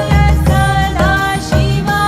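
Devotional Shiva chant music: held melodic tones over a steady, pulsing bass beat.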